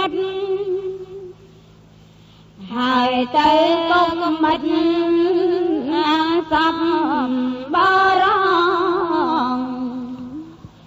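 Pali Buddhist chanting in a single voice: a sutta recited in long, melodic held tones, in phrases with a short pause after about a second and trailing off near the end.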